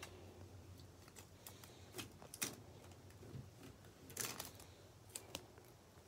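Faint handling sounds: scattered sharp clicks and light rustles, with a short cluster of clicks about four seconds in.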